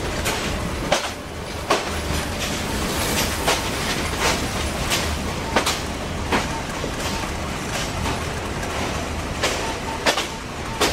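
Metre-gauge passenger train running, heard from the open doorway of a coach: a steady rumble with the wheels clicking over rail joints about three times every two seconds.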